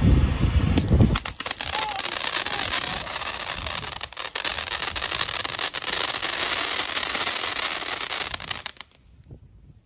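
Ground fountain firework spraying with a steady hiss and dense, rapid crackling that cuts off abruptly about nine seconds in as it burns out. Wind buffets the microphone during the first second.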